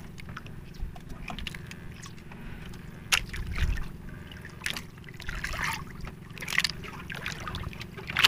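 Wet fishing handline being hauled in hand over hand aboard a small outrigger boat, with water trickling and sloshing and a few sharp knocks.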